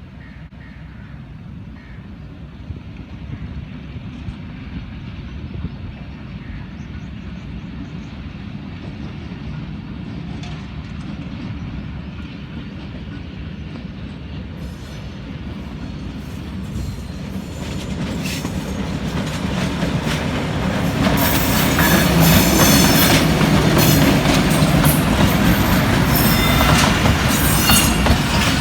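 Pakistan Railways passenger train, led by a Hitachi diesel locomotive, approaching and growing steadily louder, then passing close from about two-thirds of the way in, with its wheels clattering and squealing on the rails.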